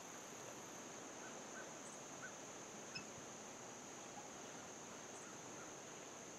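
Faint outdoor ambience of crickets trilling steadily at a high pitch, with a few faint chirps and a small tick about three seconds in.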